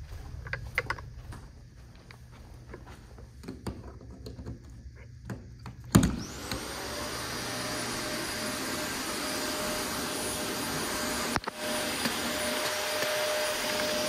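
Small knocks and handling clicks, then a corded upright vacuum cleaner switched on with a thump about six seconds in. Its motor whines up to speed and runs steadily.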